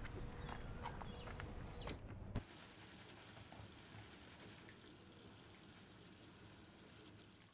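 Faint night ambience with insects chirping steadily and a few small chirps. After about two seconds it cuts off with a click to a faint steady hiss.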